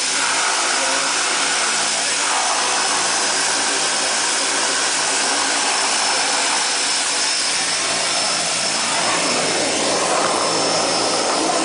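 Twin turboprop engines of a de Havilland Canada Twin Otter floatplane running steadily, heard from inside the cockpit as it moves on the water, a loud, even turbine-and-propeller noise.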